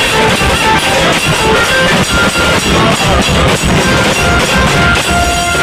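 Instrumental music with drums and a steady beat, short held melody notes over it: an interlude between sung lines of a devotional song.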